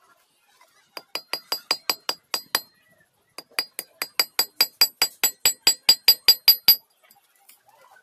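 Ratchet of a geared-lock folding pocket knife clicking as the blade is swung on its pivot: sharp metallic clicks, each with a bright ring, about five a second, in two runs with a short pause about two and a half seconds in.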